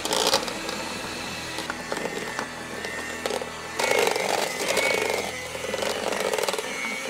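Electric hand mixer running, its beaters whirring through frosting in a metal bowl. It gives a steady whine that turns louder and rougher about four seconds in.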